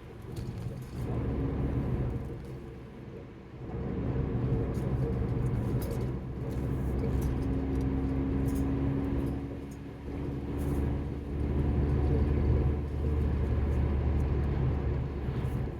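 Car engine and road noise heard from inside the cabin while driving: a steady low hum that swells and eases several times.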